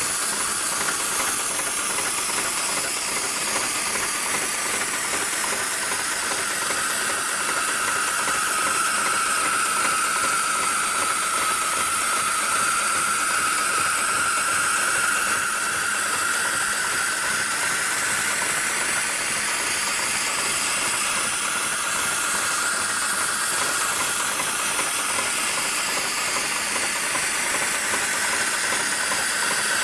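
Heavy-duty programmable sewing machine running, its sound a steady hiss of moving air with a faint machine hum and a slowly wavering tone, no separate stitch strokes standing out.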